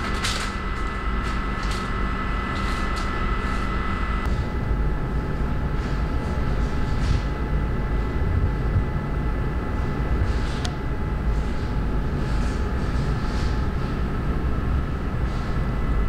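Machinery running steadily with a constant low rumble and a high whine whose tones shift about four seconds in. Short crinkles and clicks of plastic packaging bags being handled come and go over it.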